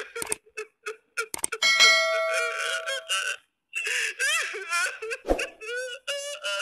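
A bell-like chime rings for about a second and a half, then a man's voice wails and cries with a wavering pitch.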